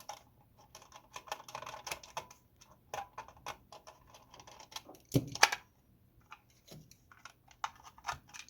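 Clicking and tapping of a screwdriver and the plastic housing of a Trimline telephone being handled as its screws are backed out and the phone is opened, with a louder knock about five seconds in.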